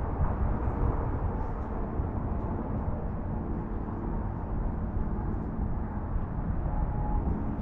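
Wind buffeting the microphone: a steady, low, gusting rumble.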